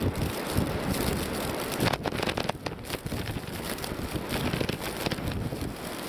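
Storm-force wind in a blizzard, buffeting the microphone in uneven gusts with a heavy low rumble and a brief lull a little before the middle.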